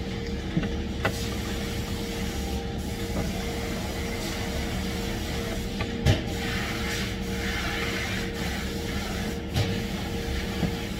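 Steady factory machinery hum with a constant tone, broken by a few short knocks as rubber hoses are handled on a wooden jig board, the loudest about six seconds in.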